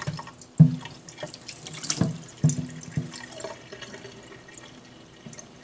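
Water from a kitchen tap running into a stainless steel electric kettle as it is topped up to its 1.7-litre maximum, with several sharp clinks and knocks of the kettle in the first three seconds; the water noise then tapers off.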